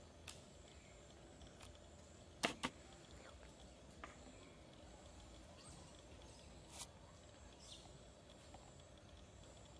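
Near silence with a faint outdoor background and a few sharp clicks. The loudest two come close together about two and a half seconds in.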